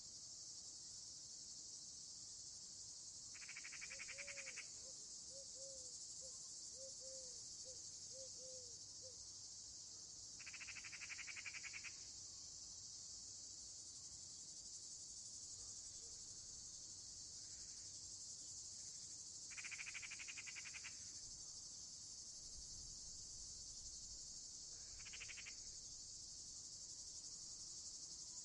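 Faint evening insect chorus of crickets, a steady high-pitched shrilling. About every eight seconds a second pulsed trill joins in for a second or so, and a few seconds in a short run of about eight quick, low notes sounds.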